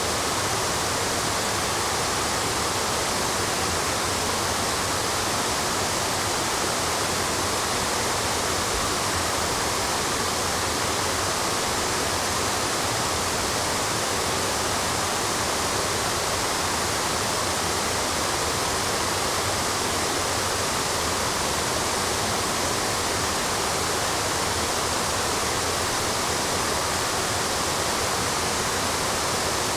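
Water of a waterfall cascade rushing steadily over granite steps.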